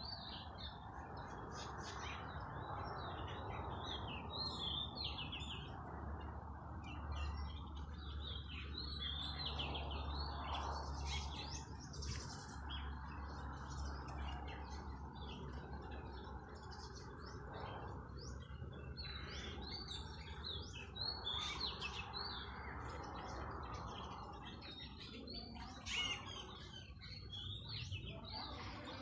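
Several birds chirping and calling, short overlapping notes and warbles, over a steady low rushing background.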